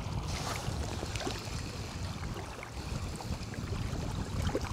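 Wind buffeting the microphone in a steady low rumble, with small waves lapping at the shore and a few faint ticks.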